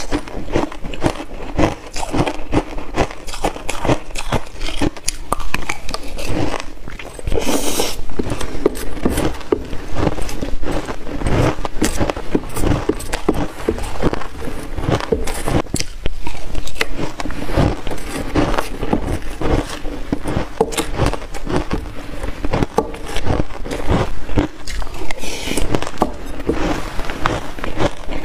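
Close-miked chewing and crunching of shaved buckwheat ice: a dense, steady run of rapid crackles, with a metal spoon scooping ice from the tray at times.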